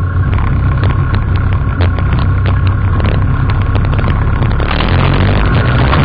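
Quad bike (ATV) engine running loud and steady while riding along a dirt track. Many sharp clicks and knocks run through the middle stretch and stop about a second before the end.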